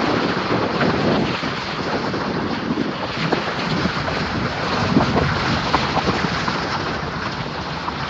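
Wind rushing over the microphone at an open car window, with the road noise and scattered stone clicks of the car rolling slowly over a rough gravel track.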